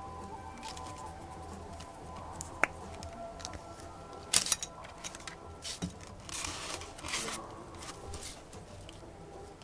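A few clicks and short scratchy strokes from work on a thin plastic acetate sheet, with soft background music throughout.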